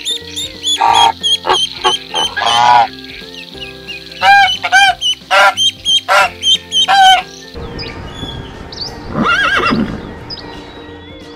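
Background music under a run of short, sharp bird calls for the first seven seconds or so, then a pony whinnies once about nine seconds in.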